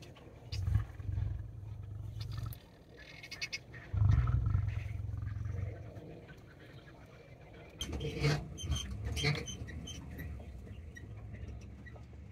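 A mating pair of lions growling deeply, with short growls about half a second in and a longer, louder growl about four seconds in. Softer, shorter sounds follow around eight to nine seconds in.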